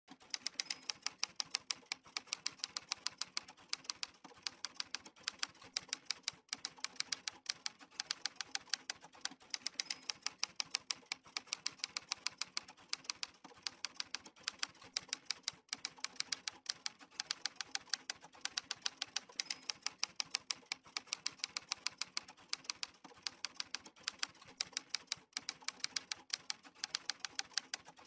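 Typewriter sound effect: a steady run of sharp key strikes at about four a second, with a few brief pauses.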